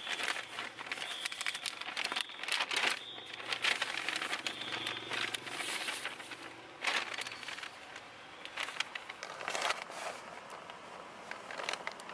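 Brown paper shopping bag crinkling and rustling in quick irregular crackles as it is opened and handled and a paperback book is pulled out.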